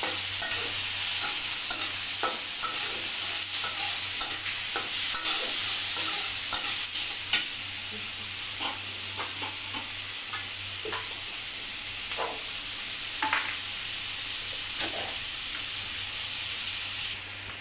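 Potato sticks, onion and green chilies frying in hot oil in a black kadai, sizzling steadily, while a metal spatula scrapes and clinks against the pan as they are stirred. The clinks are frequent at first and become sparse after about seven seconds.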